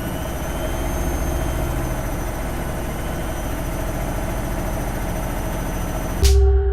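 Steady machine hum with a low rumble and a few constant tones. About six seconds in it breaks off in a sudden loud burst and gives way to a steady ringing tone over a deep hum.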